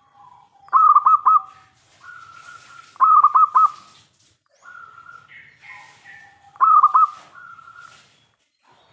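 Zebra dove (perkutut) cooing: three loud phrases, each a quick run of three or four rippling coos, about three seconds apart, with quieter drawn-out coos between.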